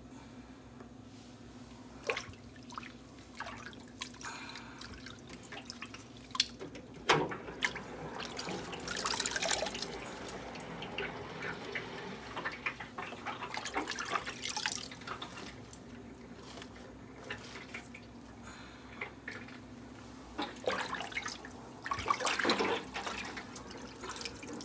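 Water sloshing, splashing and dripping as hands lift washed collard greens out of a sink full of water, in irregular bursts that are loudest about nine seconds in and near the end.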